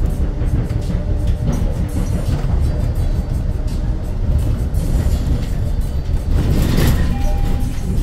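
Cabin of a moving Hyundai Elec City electric bus: steady low road rumble with constant rattling of the interior fittings, and a louder surge of noise about seven seconds in, followed by a couple of short steady tones.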